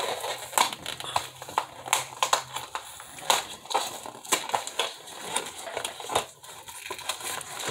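Cardboard box flaps and packing tape being pulled apart by hand: irregular crackling, crinkling and scraping throughout.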